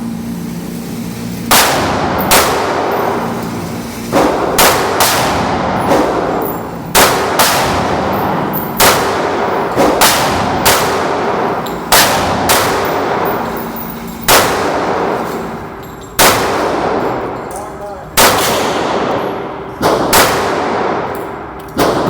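Gunshots from a 1911 pistol, with more reports from other shooters on the firing line: about twenty sharp shots at uneven intervals, often in quick pairs, each ringing out in a long echo.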